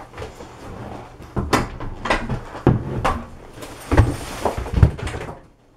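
Knocks, clatter and thuds of gear being grabbed and moved around, with two heavy thuds about four and five seconds in.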